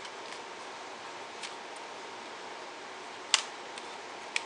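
Sharp plastic clicks from handling the DJI Mavic Air 2 drone, two louder ones about a second apart near the end, over a steady background hiss.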